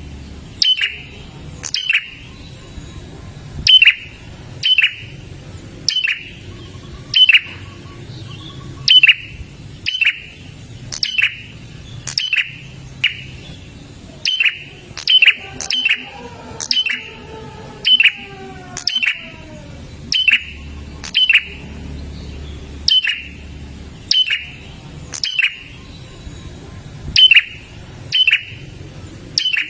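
Prinia (prenjak) calling: loud, sharp chirps, each a quick downward sweep, repeated about once a second and often in quick pairs.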